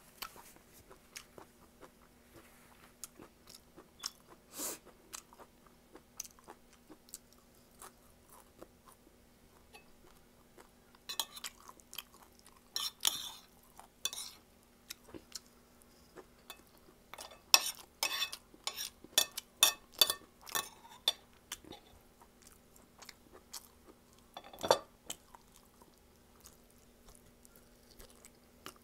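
Close-up eating sounds: wet chewing and mouth clicks of boiled pork, rice and vegetables, with a spoon and fork clicking on the plate now and then. The sounds come in busier bursts, with a single louder knock near the end.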